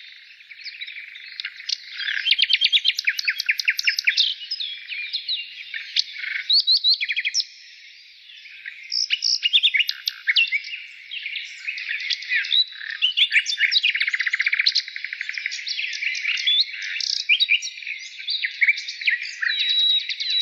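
Several small birds chirping and trilling at once in a busy, continuous chorus of quick high notes, with a short lull a third of the way through.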